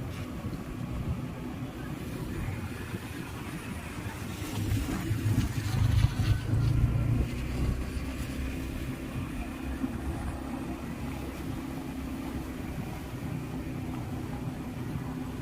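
A motor vehicle running steadily, with a louder rushing swell about five seconds in that fades after a couple of seconds.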